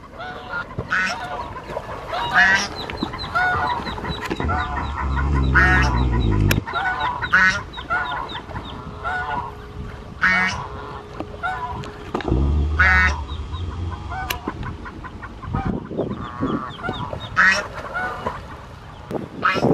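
White domestic geese honking over and over, in short loud calls. Twice a low rumble runs under the calls for a couple of seconds.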